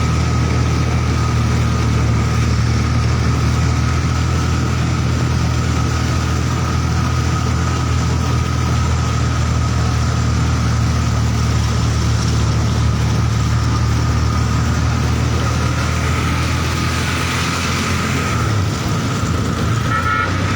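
A motor engine running steadily with a low rumble and a faint even whine, without a break.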